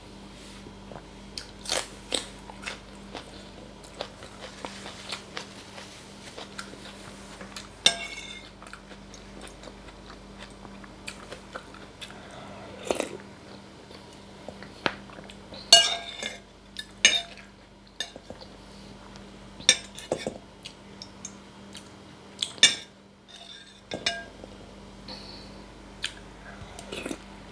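Close-miked eating of meatball soup: a metal spoon clinks and scrapes against the soup bowl now and then in sharp, briefly ringing knocks, with chewing in between.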